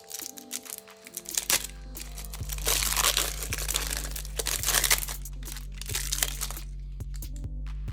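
Crinkling and rustling of plastic packaging as a replacement router antenna is handled, with many small clicks, loudest in the middle and dying away near the end, over background music with a steady bass.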